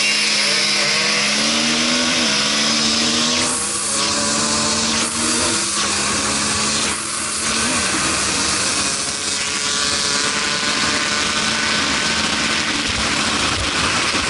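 Enduro dirt bike engine running hard under acceleration across a field, its pitch climbing and stepping back at a few gear changes, with heavy wind rush on a helmet-mounted camera.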